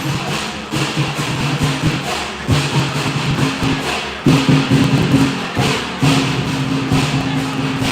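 Music playing, with a low steady tone that breaks off and starts again every second or two, over irregular knocks and thumps.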